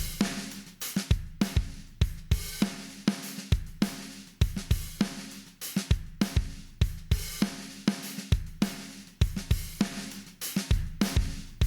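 Acoustic drum kit loop playing a steady beat of kick, snare, hi-hat and cymbals.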